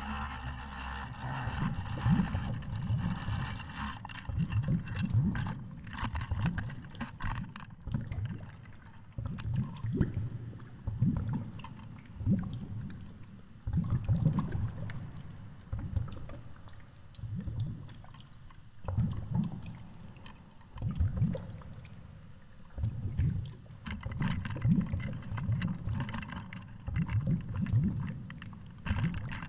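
Muffled underwater water noise picked up through a GoPro's waterproof housing on a line hanging at depth: low rushing surges about once a second, with scattered light clicks in the first few seconds.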